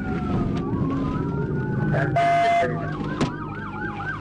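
Police cruiser siren wailing in slow rising and falling sweeps, cut by a loud horn blast of about half a second some two seconds in, after which the siren switches to a fast yelp of about three to four sweeps a second as the car comes to a stop.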